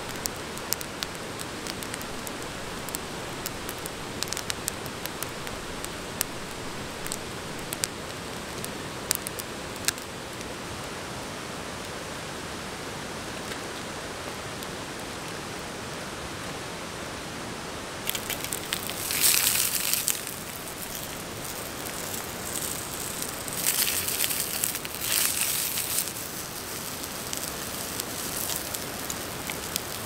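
Steady rushing of river water under sharp pops from a wood campfire, the pops coming through the first ten seconds or so. Later, a plastic bag crinkles twice as raw sausages are squeezed out of it into a small frying pan.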